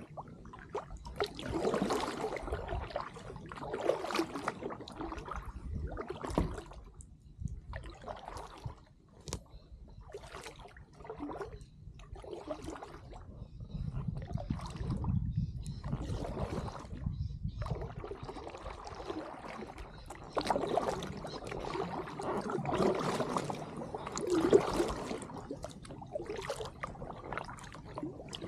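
Kayak paddle strokes dipping and swishing through the water, a stroke every second or two, with water trickling off the blades.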